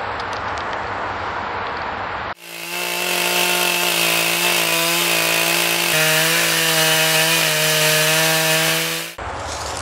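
Stihl chainsaw mounted on a chainsaw slabbing mill, running at steady high revs under load as it rips through an oak stump; the pitch steps slightly lower about six seconds in. Before the saw starts there are about two seconds of scraping noise with small knocks from a shovel in the rotted hollow of the stump.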